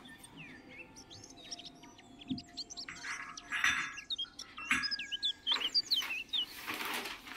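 Small birds chirping in quick, varied short calls, with the rustle of a newspaper being opened and handled several times in the second half.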